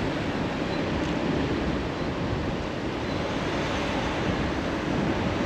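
Steady wind rushing over the camera microphone while riding an electric custom scooter through town, with vehicle noise beneath; the scooter's electric motor itself is nearly silent.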